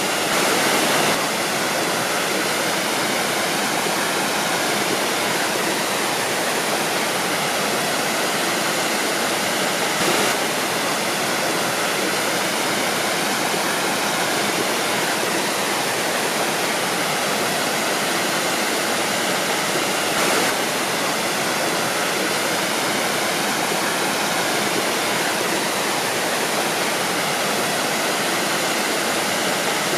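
Waterfall: water falling and rushing in a steady, dense roar, with a slight brief swell about every ten seconds.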